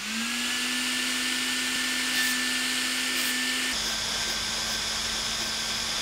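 Hairdryer's small DC motor spinning up a 3D-printed fan and then running with a steady whine and a hiss of air; the pitch drops a little about two-thirds of the way through. No bang: the brake cleaner is not igniting.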